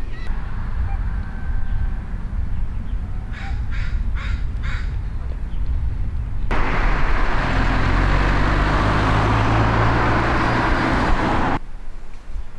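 Outdoor low rumble with a bird giving four short calls a little under half a second apart, about three to five seconds in. Then, from about halfway through, a loud steady rushing noise with a low hum under it lasts about five seconds and starts and stops abruptly.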